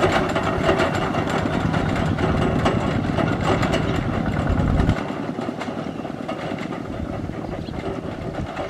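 Single-cylinder diesel engines of two-wheel tractors (Kubota ZT140 type) chugging at a fast steady beat as they pull loaded trailers. About five seconds in, the sound drops sharply in level and carries on quieter as they pull away.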